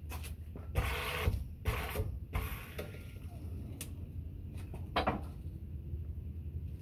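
QuickJack 5000 portable scissor lift lowering a car, its steel frames creaking and scraping in several rasping bursts during the first three seconds, then a sharp click and, about a second later, a louder metal knock.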